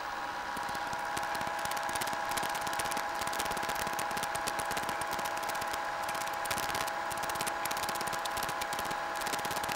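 Southwestern Industries Trak K3 CNC knee mill running a circle-pocket program: a steady whine of the spindle and X/Y axis drives, with a fast continuous rattle from the end mill cutting.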